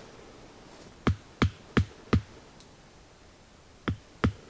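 Hatchet hammering a tent stake into the ground, a series of solid thuds: four blows in quick succession, about three a second, then a pause and two more near the end.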